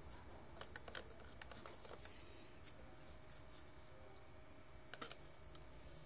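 Faint scattered clicks over a faint steady hum: a handful in the first three seconds, then a quick group of three, the loudest, about five seconds in.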